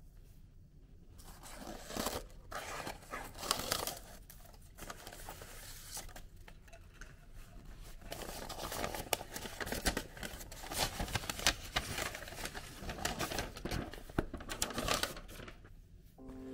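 Paper gift wrapping being handled and pulled off a box by hand: irregular rustling and crinkling with sharper crackles, starting about a second in and stopping just before the end.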